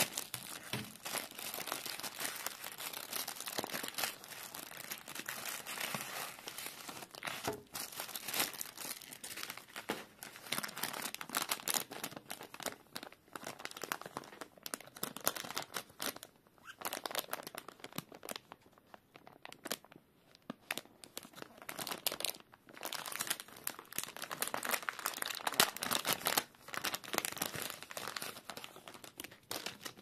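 Plastic packaging crinkling and rustling as a courier mailer bag and a thin inner poly bag are handled and torn open, with dense crackles throughout and a quieter stretch midway.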